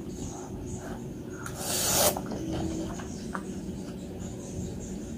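Close-miked eating of spicy meatball noodles: soft chewing and mouth clicks, with one loud slurp of noodles about two seconds in.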